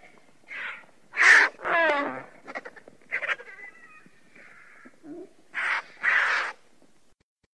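Vultures calling: a loose series of short, harsh, raspy calls, the loudest about a second in, one just after it sliding down in pitch, and a last pair near six seconds.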